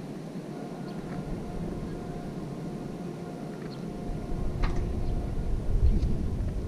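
Wind buffeting the microphone in uneven gusts that grow stronger from about four seconds in, over a low, steady outdoor rumble with a faint hum.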